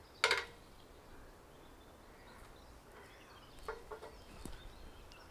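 A short, loud animal call just after the start, then two quieter short calls about three and a half seconds later, over faint outdoor background.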